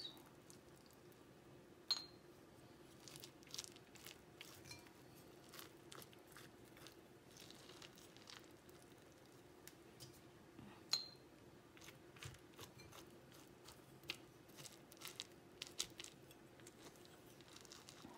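Metal spoon faintly scraping seeds and stringy pulp out of a baked spaghetti squash half, with two sharp clinks of the spoon, about two seconds in and again past the middle.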